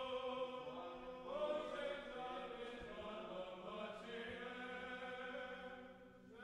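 Soft background choral chant music: voices holding long chords that move from one to the next, dipping near the end.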